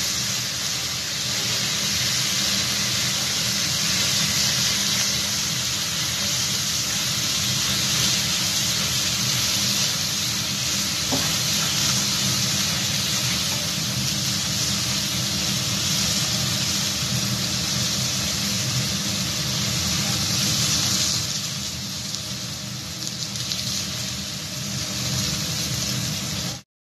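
Meat sizzling hard in a very hot pan as flames flare up from it, then a steak searing on a ridged grill pan. A steady hiss with a low rumble beneath, easing a little about 21 seconds in.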